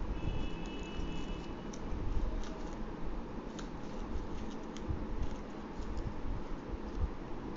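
Green origami paper crinkling and creasing in the hands as it is folded into a paper grasshopper: scattered soft crackles and clicks over a low rumble of handling noise. A faint high steady tone sounds for about a second and a half near the start.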